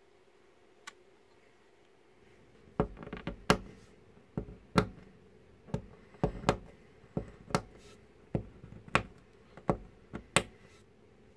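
Plastic LEGO Technic pieces clicking and tapping as they are handled and pressed together: about fifteen sharp clicks at irregular intervals, starting about three seconds in.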